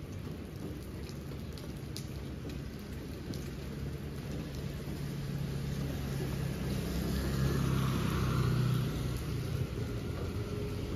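Rain falling steadily on a wet asphalt street, with scattered drop ticks early on. A vehicle passes on the wet road, its hum and hiss swelling to their loudest about eight seconds in, then easing.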